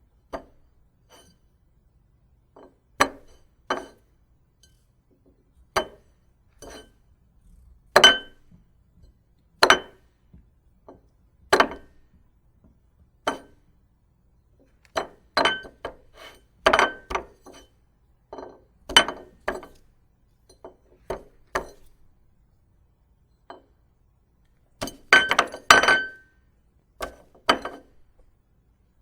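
A series of short, sharp clinks and knocks at irregular intervals, some with a brief ringing tail, bunching into quick clusters in places.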